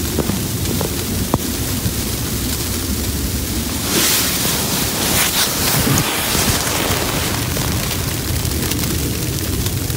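Wind rumbling on the microphone, with a few handling knocks in the first second or so, then a burst of fabric rustling from about four to six and a half seconds in as the hammock tarp brushes against the microphone.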